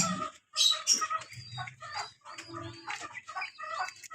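Animal calls: short pitched cries repeated several times a second, with higher chirps from birds behind them.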